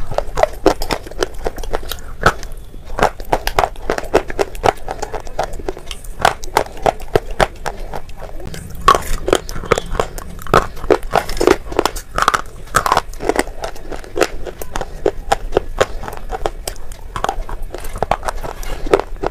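Close-miked crunching and chewing of red slate pencils: a person bites off pieces and chews them, a dense run of sharp, crackling crunches.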